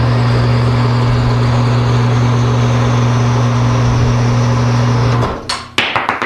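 Harbor Freight horizontal metal-cutting bandsaw, driven by a 1/3 hp electric motor, running with a steady hum and blade noise as it saws through half-inch black steel gas pipe. About five seconds in the motor stops suddenly, followed by a few sharp clanks.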